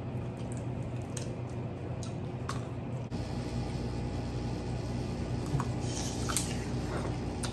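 Wet squishing and scattered short clicks and cracks of crab-leg shells being pulled apart by hand and the meat eaten, over a steady low hum.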